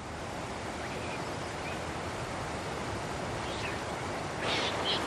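A steady rushing hiss. From about four and a half seconds in, the brighter, uneven splashing of a mountain stream running over rocks comes in.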